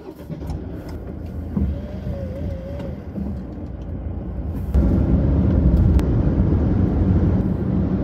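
Car in motion heard from inside the cabin: a steady low rumble of engine and tyres that gets noticeably louder a little past halfway, as the car picks up speed on an open road.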